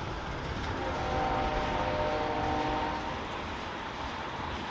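Train running with steady low rumble, and a locomotive air horn sounding one multi-note chord for about two seconds, starting about a second in.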